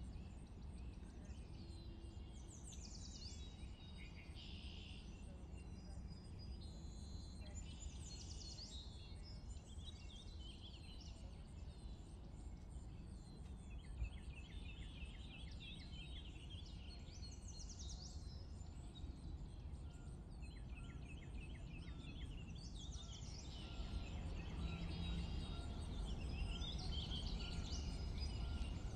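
Outdoor nature ambience: several birds chirping and singing, some in quick repeated trills, over a steady low rumble. A single soft click about halfway through.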